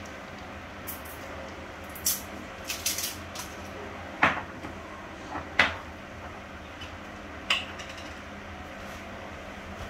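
Kitchen clatter: several sharp knocks and clinks of dishes, pots or utensils being handled, the loudest about four and five and a half seconds in, over a steady low hiss.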